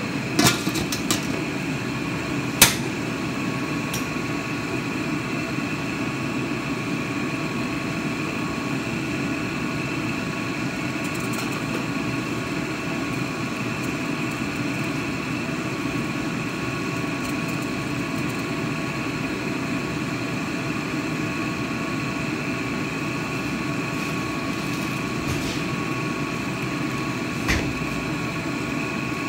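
Stainless steel wok lid clanking as it is set on a wok, three sharp clanks in the first few seconds with the last the loudest. A steady machine hum with faint held tones runs underneath, and there is a single knock near the end.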